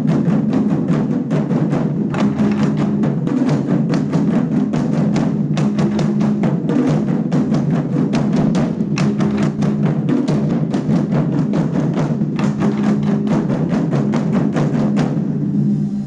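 Group drumming: many drums struck together in a fast, dense run of loud strokes that stops just before the end.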